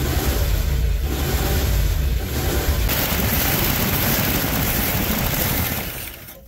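1970s Mercury's carbureted engine running on its first start after sitting about 20 years. It turns hissier about three seconds in and fades out near the end.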